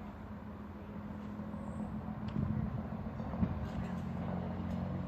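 A heritage train's engine idling while the train stands at the station, a steady low hum, with a few short knocks in the middle.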